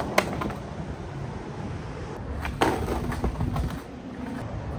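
Skateboard wheels rolling on rough asphalt, with a sharp clack about two and a half seconds in and about a second of scraping against the concrete curb: a boardslide pop-out attempt.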